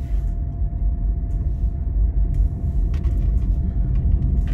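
Steady low rumble of road and engine noise inside a moving car's cabin, with a few faint clicks.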